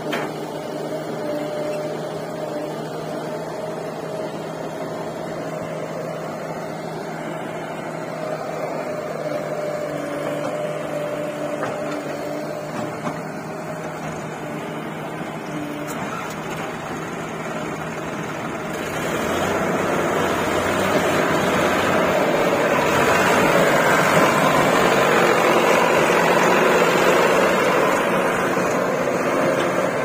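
Heavy machinery diesel engine running steadily, then revving up and running much louder from about two-thirds of the way through.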